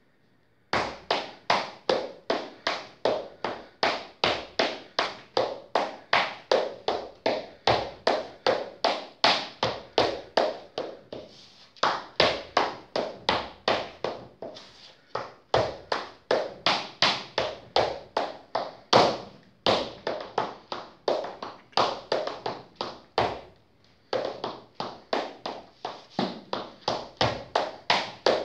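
Irish dance hornpipe steps danced slowly: shoes striking a laminate floor in a steady run of sharp taps, about three a second, with a few brief pauses between phrases.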